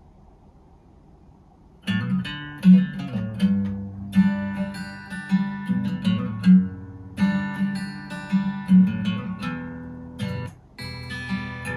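Acoustic guitar music, strummed and plucked, starting about two seconds in and played back through a Klipsch Reference-series center speaker. The music drops out for a moment near the end and comes back, as the speaker selector switches between center speakers.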